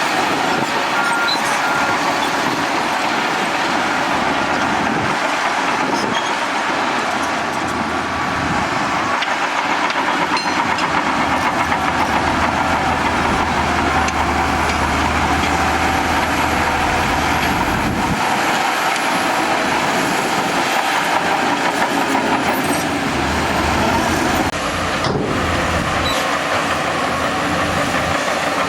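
Bulldozer working: its diesel engine running steadily under load along with continuous mechanical clatter, the low rumble swelling and easing at times.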